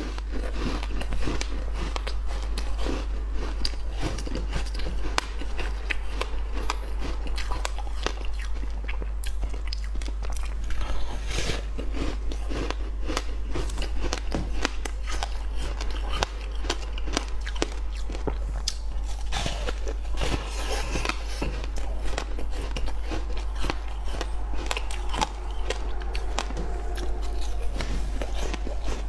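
Hard frozen fruit ice with seeds being bitten and chewed close to a clip-on microphone: repeated sharp crunches and cracks as the ice breaks between the teeth, over a steady low hum.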